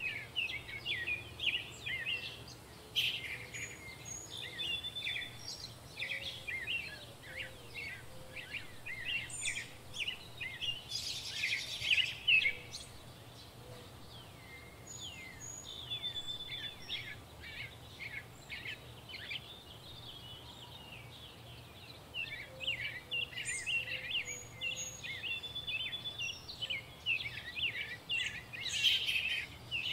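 Small birds chirping busily in quick, short notes with occasional thin whistles, over a faint steady background. A brief rustling noise about eleven seconds in is the loudest moment.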